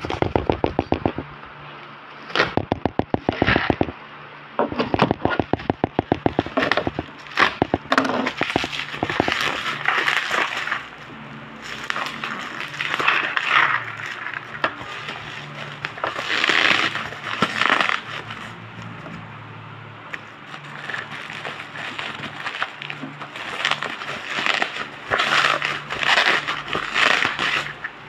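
Bubble-wrap packaging crinkling and crackling as a parcel is handled and unwrapped: runs of rapid crackling clicks in the first several seconds, then repeated bursts of plastic rustling.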